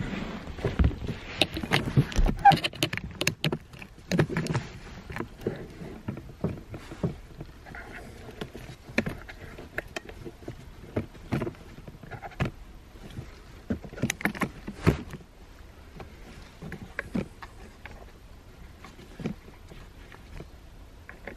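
Handling noise from a camera and a person shifting about inside a car's cabin: irregular clicks, knocks and rustling, busiest in the first five seconds, then sparser and quieter.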